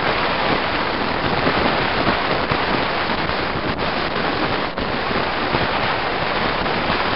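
Steady, loud rushing of wind on the microphone mixed with road noise from a moving vehicle.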